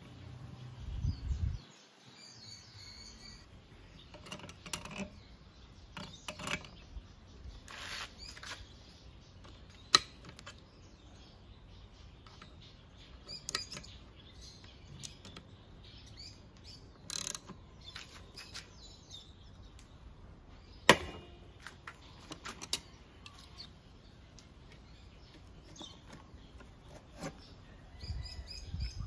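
Scattered metal clicks and clinks of hand tools as a magneto puller is threaded into a scooter engine's flywheel and turned with a ratchet to pull the flywheel off, with two sharp metallic knocks, about ten seconds in and about twenty-one seconds in. Birds chirp in the background.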